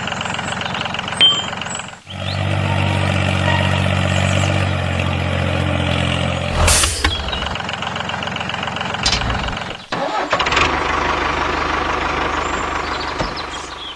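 Tractor engine running in several cut-together stretches, with abrupt breaks about two seconds in and again near ten seconds. There is a single sharp knock partway through.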